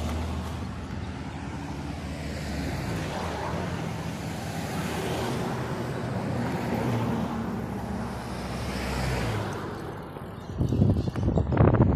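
Road traffic passing close by: car and four-wheel-drive engines and tyres on the road, swelling and fading as vehicles go by. In the last second and a half, wind gusts buffet the microphone loudly.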